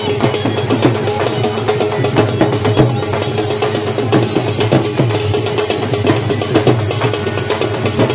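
Live folk drumming on double-headed barrel drums, a fast, dense, unbroken beat, with a steady held note running underneath.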